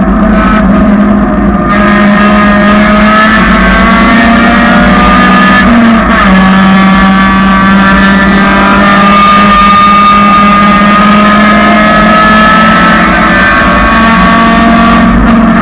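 1999 Honda Civic's four-cylinder engine running loud and hard at speed on a race track. The engine note holds steady, with a brief dip and shift in pitch about six seconds in.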